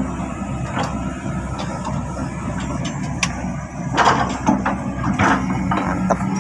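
Heavy diesel machinery engine running steadily, with a sharp click about three seconds in and clattering knocks about four and five seconds in, as of boulders being loaded into a steel dump-truck bed.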